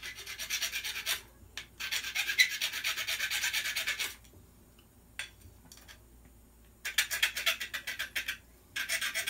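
Hand file rasping on a small pin from a gas blowback airsoft rifle's nozzle assembly, in quick short back-and-forth strokes. There are four runs of filing, with a pause of about three seconds in the middle. The pin is being filed down because it will not go all the way through the nozzle; its end was crushed out of round by pliers.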